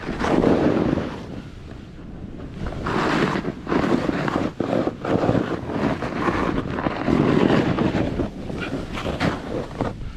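Snowboard riding down a powder run: a rushing swish of the board through snow that swells with each turn, mixed with wind buffeting the microphone.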